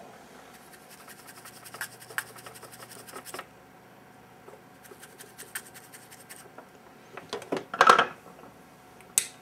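Light scratching and rubbing as a tool is dragged over the pads of a BGA graphics chip to clear leftover solder, a run of fine scraping ticks that stops a little over three seconds in. Near the end come a few louder knocks as tools are handled.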